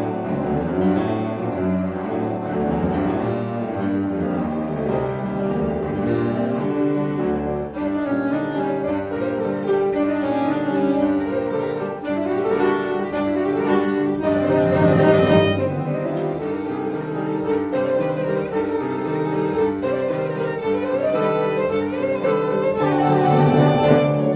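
Instrumental music: bowed strings, cello and violin, with piano, playing a continuous melody.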